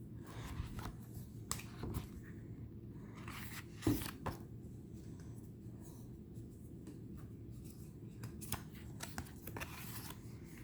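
Faint rustling and light clicks of tarot cards being handled and slid against one another, with a sharper tap about four seconds in.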